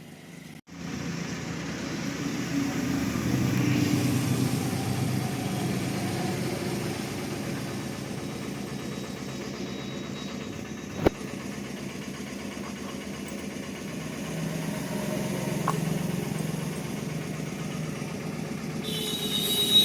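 Bajaj Avenger motorcycle's single-cylinder engine running at idle. It comes in abruptly just under a second in, with a sharp click about eleven seconds in and a louder, higher-pitched sound joining near the end.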